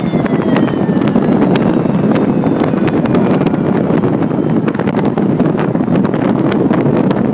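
Truck traffic running past with heavy wind buffeting on the microphone, a steady loud rumble with frequent crackles. In the first second or so a truck's horn tone slides slightly down in pitch and fades out.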